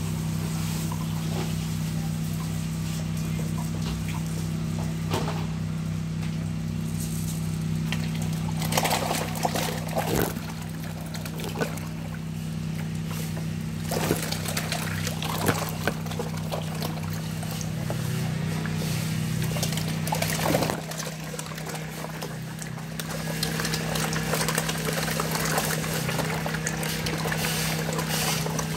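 Water sloshing and splashing in a blue plastic drum of catfish, with several sharper splashes among the churning. A steady low hum runs underneath, and part of it drops away about two-thirds of the way through.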